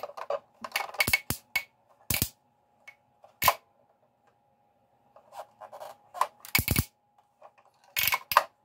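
Sharp plastic clicks and snaps from a toy Batmobile being worked by hand, as its cockpit controls are pressed and its spring-loaded rocket boosters are released and pushed back. The clicks come singly and in quick pairs, with a pause of a couple of seconds in the middle.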